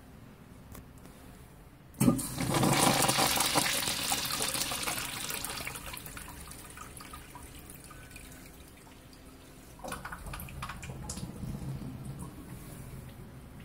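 Vintage Crane urinal flushed by its chrome flushometer valve: a sudden rush of water about two seconds in that slowly dies away over several seconds. A second, quieter surge of running water starts near ten seconds in.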